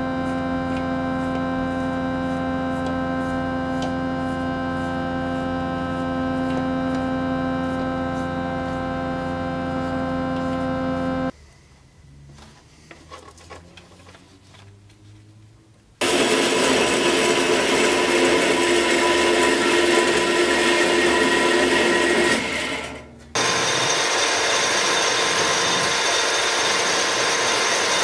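A steady hum with several held tones, then a few seconds of faint small handling sounds, then a loud, noisy machine sound from about sixteen seconds in, broken briefly near the end, where a metal lathe is turning and cutting a steel part.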